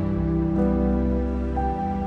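Background music of slow, sustained held notes, with a new note coming in about half a second in and a higher one near the end.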